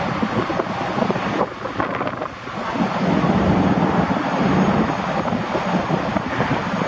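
Boeing 929 Jetfoil's Allison gas turbines and waterjets running as the ferry moves close by, a steady jet-like noise mixed with rushing spray, with wind buffeting the microphone. The noise dips briefly about two seconds in, then grows louder.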